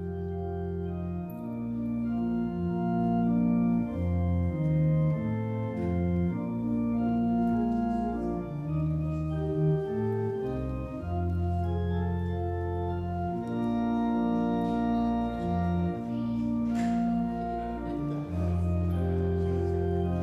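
Church organ playing held chords over a changing bass line.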